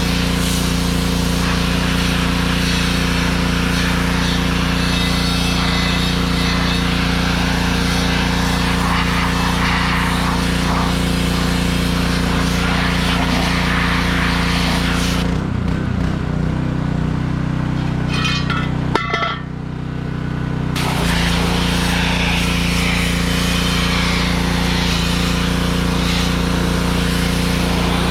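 Small engine of a pressure washer running steadily with the wand spraying. About fifteen seconds in, the spray stops for about five seconds with a few light clinks while the engine keeps running, then the spray starts again.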